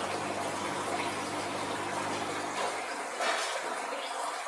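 Oxygen bubbling steadily from a diffuser stone in the water of an aquarium egg incubator, a continuous fizz of rising bubbles. A low hum under it drops away about three seconds in.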